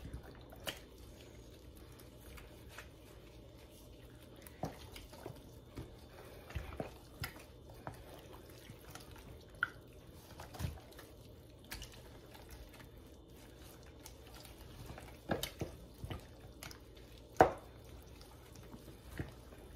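Gloved hands squishing and massaging wet, marinade-soaked spare ribs in a plastic container: scattered wet squelches and smacks, two louder ones about 15 and 17 seconds in.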